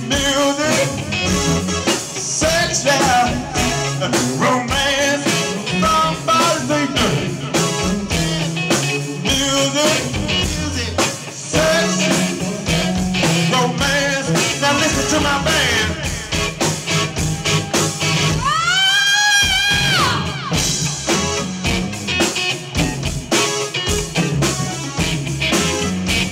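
Live band playing with a male lead singer over electric bass, electric guitar and drum kit. About nineteen seconds in, one long note swoops up and falls back.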